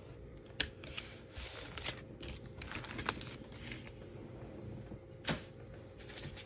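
Plastic card packaging being handled: a clear plastic sleeve rustling and crinkling, with three sharp clicks of a hard plastic card case, the loudest about half a second, three seconds and five seconds in.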